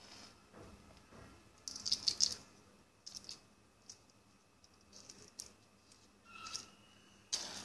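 Plastic bottle caps and matchsticks handled in the hands, giving scattered clicks and rattles, loudest about two seconds in. Near the end a match is struck and flares, a sudden scrape followed by a short burst of noise.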